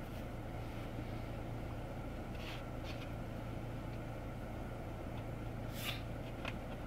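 Steady low hum inside a car cabin, with a few faint short rustles or ticks.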